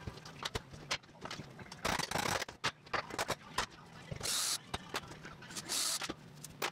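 A cordless drill run in a few short bursts, backing screws out of a wooden cabinet shelf, among sharp clicks and knocks of the wood and tools being handled.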